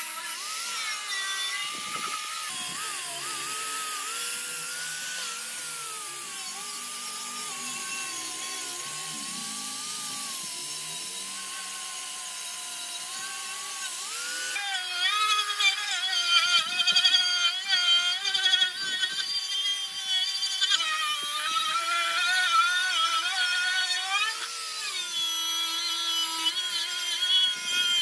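Angle grinder with a wire cup brush running against rusty metal, scouring off the rust; its motor whine wavers in pitch as the brush is pressed and eased. About halfway through it gets louder and rougher.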